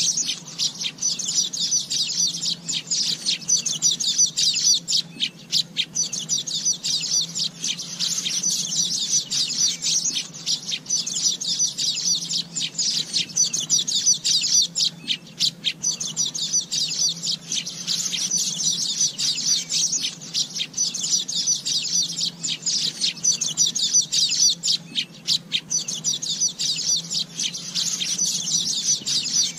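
Asian golden weavers chattering: dense, rapid, high-pitched chirps that run on without a break and swell and ease every few seconds.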